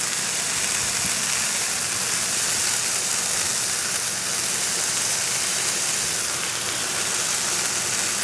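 Ground-beef patties frying on a hot flat-top griddle with raw sliced onion piled on top: a steady, even sizzle.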